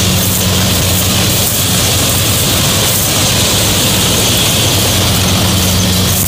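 Sonalika 750 III tractor's engine and the tractor-mounted Balkar mini combine harvester running steadily under load while harvesting. It is a constant loud engine hum with the rushing noise of the threshing and straw-blowing machinery on top.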